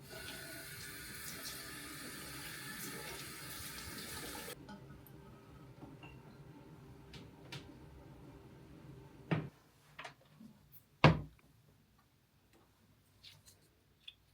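A tap running into a sink for about four and a half seconds, then shut off abruptly. A few seconds later come several sharp knocks, the loudest about eleven seconds in, and some light clicks, as things are handled and set down.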